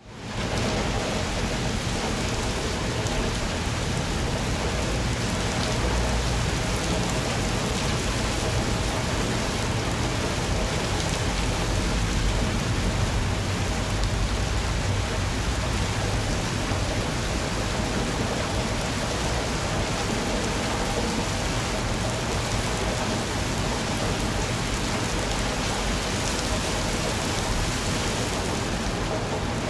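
Steady rain falling, an even hiss across all pitches that fades in at the very start, with a low rumble underneath.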